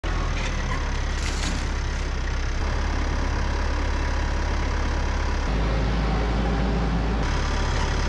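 Tractor engine running steadily, its low hum changing tone a few times.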